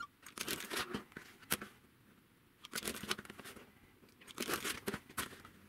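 Rotary cutter blade rolling through a sewn cotton strip set against an acrylic ruler on a cutting mat, with the ruler and cut fabric pieces shifted between cuts. It comes as three short bursts of cutting and handling noise.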